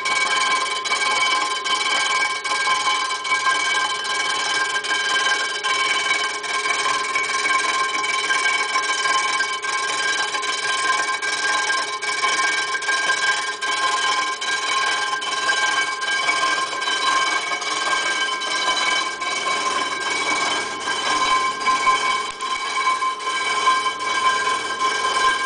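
Rotary broach resurfacing a 350 Chevy cylinder head: the machine runs with a steady whine while its spinning cutting head shaves the head's gasket surface, with a regular light tick over it.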